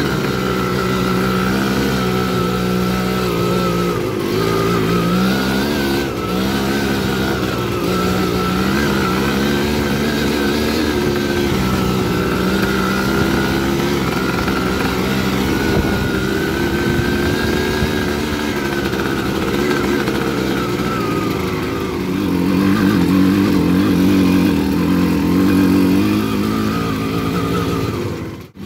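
Dirt bike engine running under light, steady throttle, its pitch wavering up and down. About three-quarters of the way through it climbs to a higher, louder rev. The sound cuts out abruptly for a moment just before the end.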